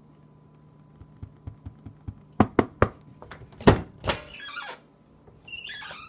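Fingertips tapping a microwave's keypad with no beeps in answer, since the microwave will not turn on, then several loud thunks against the microwave, the loudest about three and a half seconds in. Near the end comes a drawn-out call falling in pitch.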